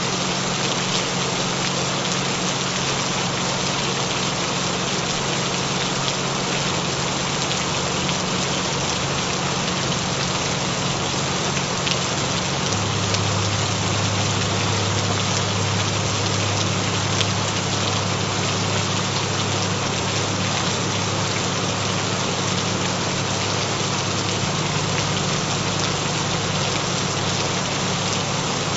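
Steady gentle rain, with steady low tones (binaural frequency tones) humming underneath; a deeper tone grows stronger about halfway through.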